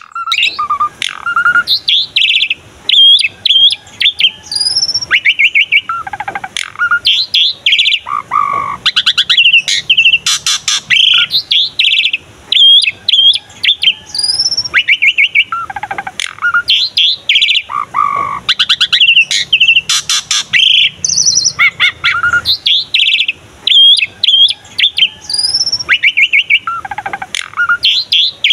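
Javan pied starling (jalak suren) in full, vigorous song: a fast, varied string of whistles, chattering notes and rattles with short pauses between phrases.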